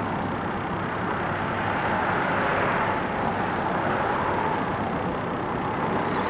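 Steady tyre and road noise from traffic on a highway bridge, an even hiss with no distinct events.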